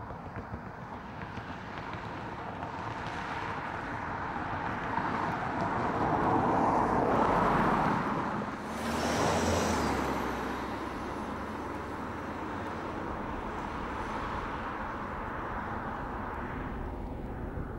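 Volkswagen CrossTouran driving past: engine and tyre noise builds as it approaches, is loudest as it goes by about halfway through, then settles to a steadier road noise as it moves away.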